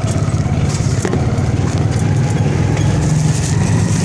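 Bus engine running under way, heard inside the passenger cabin as a steady low drone with light rattles.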